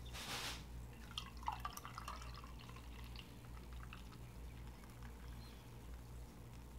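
Home-brewed dunkelweizen poured from a glass swing-top bottle into a glass mug: a brief rush at the start, then gurgles and drips for a second or so, then only faint liquid sounds. A low steady hum underneath.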